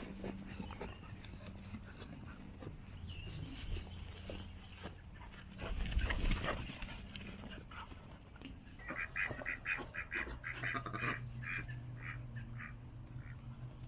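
Cane Corso puppies whimpering and squeaking, with a quick run of high squeaks about nine seconds in. A low thump about six seconds in is the loudest sound.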